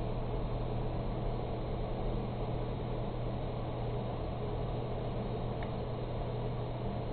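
Steady hum with a constant hiss over it, unchanging throughout: the running noise of computer equipment and its fans.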